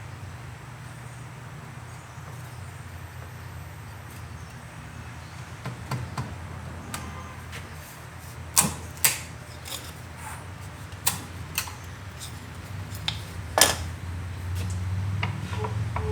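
A series of sharp clicks and knocks from thin pieces of wood being split apart and worked into place as a wedge. The loudest come about halfway through and again near the end, over a steady low hum.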